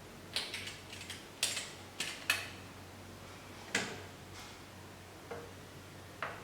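Irregular clicks and knocks of hard plastic and metal machine parts being handled and fitted, about ten in all, several close together in the first half.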